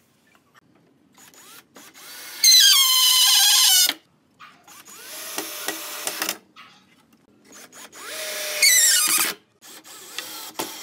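Cordless drill running into pine boards in three bursts. In the two loudest, about two seconds and eight seconds in, its motor whine drops in pitch as it loads up.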